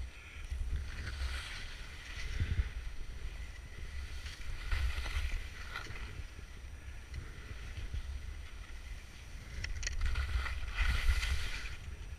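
Skis sliding and turning through snow, a hiss that swells and fades several times with the turns, over a steady low rumble of wind on the microphone.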